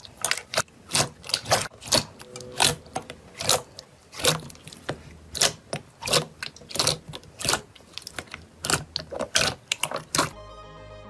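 Thick slime being squeezed and kneaded by hand, giving a quick, irregular series of sharp sticky clicks and pops, a few each second. Music begins near the end.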